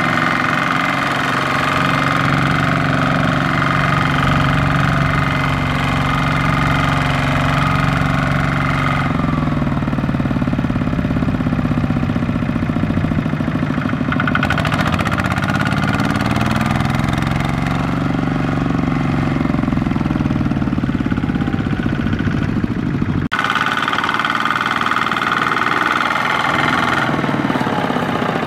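Two-wheel walking tractor's single-cylinder diesel engine running under load as it hauls a trailer of rice sacks through mud and stubble. Its pitch wavers up and down through the middle stretch, and the tone shifts suddenly at two points.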